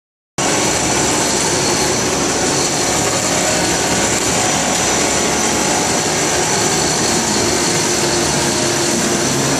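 Blower of a PE film blowing machine running: a loud, steady rush of air with a constant whine and hum. It cuts in abruptly about half a second in.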